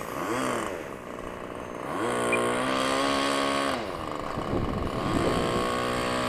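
Whine of an E-flite Timber RC plane's electric motor and propeller, its pitch rising and falling with throttle and passes. It holds one pitch for a while, drops, climbs again, and settles steady near the end.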